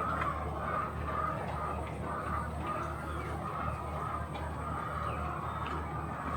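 Chickens clucking, a steady run of short calls about two a second, over a low hum.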